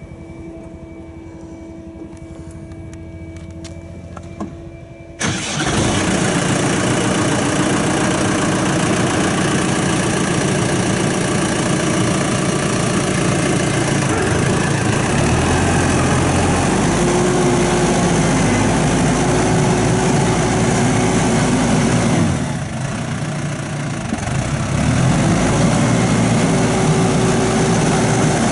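New Holland T5070 tractor's diesel engine starting about five seconds in, after a fainter steady hum, catching at once and running. Near the end its sound dips briefly, then comes back up.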